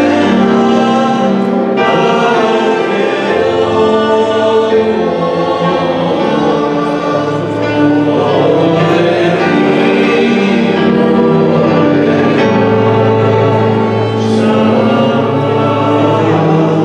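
A group of voices singing together like a choir, in long held notes that move from chord to chord.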